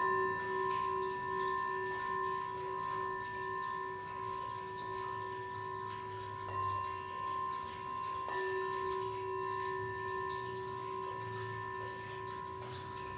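Metal singing bowls ringing with long sustained tones that pulse slowly; another bowl is struck about eight seconds in, refreshing the ring.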